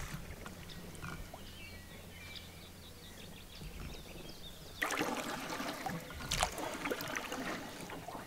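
Paddling a wooden canoe on a calm lake: a few quiet seconds with faint bird calls, then about five seconds in, a paddle stroke starts, with water splashing and trickling against the hull.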